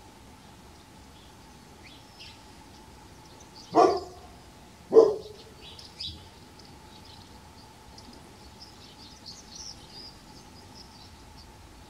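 An animal barks twice, loud and short, about a second apart. Small birds chirp faintly throughout.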